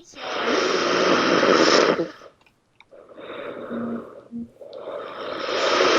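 Heavy snoring: two loud, noisy snores of about two seconds each, with a softer breath between them. It sounds like gasping for air.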